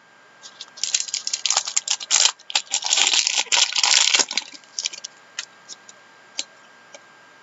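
Crinkling and tearing of a trading-card pack wrapper, with rustling as hockey cards are handled. It runs for about three and a half seconds, then gives way to a few light clicks.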